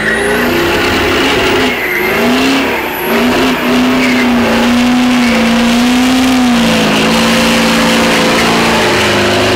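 Power Stroke diesel in an old pickup held at high revs through twin exhaust stacks during a burnout, its tyres spinning on dirt. The engine note holds steady and wavers slightly, dipping about two-thirds through, with a thin high whistle over it in the first three seconds.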